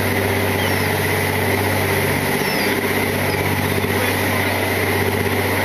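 Fishing boat's engine running steadily under way, a constant hum, over the rush of the churning wake.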